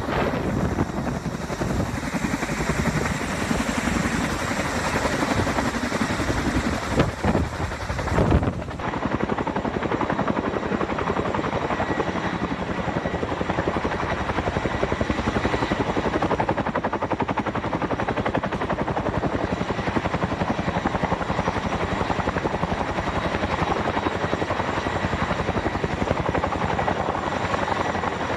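Distant RAF Chinook tandem-rotor helicopter hovering under a slung load, its blades beating in a rapid, even chop. In the first eight seconds the sound is rougher, with low rumble and a few loud knocks on the microphone, then it settles into the steady rotor beat.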